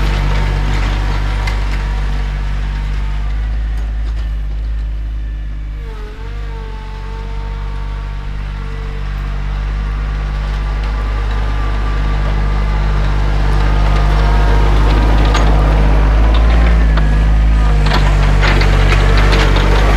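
John Deere 2025R compact tractor's three-cylinder diesel engine running steadily. Its note dips briefly about six seconds in and comes back, and it runs louder from about fourteen seconds on, with some rattling near the end.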